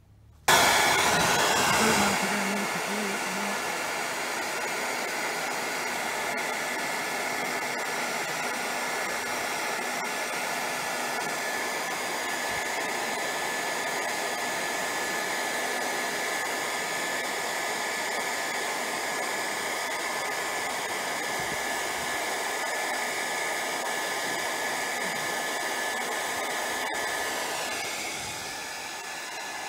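Hairdryer switched on about half a second in and then running steadily, an even blowing rush with a steady high whine, easing off a little near the end. It is heating a caravan's loose window trim to soften it for pressing back into place.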